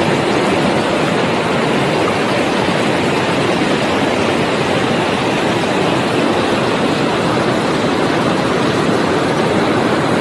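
Steady rushing of river water pouring over a small cascade and through a rocky limestone bed, with no change in level.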